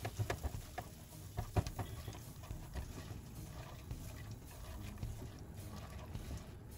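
Silicone spatula stirring and scraping bulgur and chopped onion in a stone-coated pot, giving soft, irregular scrapes and taps, while they toast in oil over low heat.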